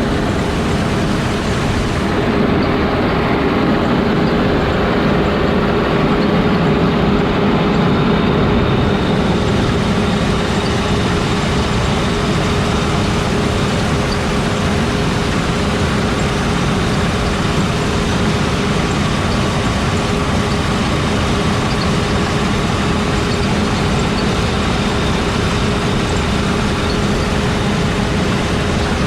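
Heavy farm machinery running steadily: a constant diesel engine drone with a few even whining tones on top.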